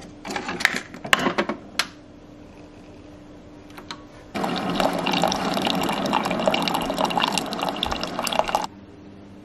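A few light clicks and knocks, then liquid pouring steadily for about four seconds before stopping suddenly.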